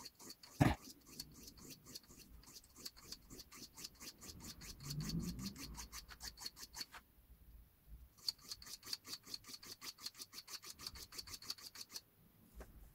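Steel knife blade scraping back and forth on a whetstone in quick even strokes, about six a second, re-forming the bevel of a knife blunted by a machine. The strokes pause for about a second partway through and stop about a second before the end. There is one sharp knock about half a second in.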